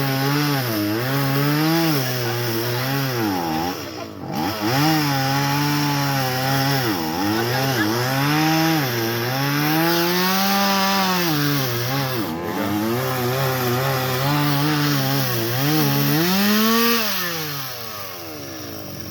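Chainsaw engine cutting into a tree limb: its pitch repeatedly sags as the chain bites and picks back up. Near the end it slides down and drops to a quieter idle as the throttle is let off.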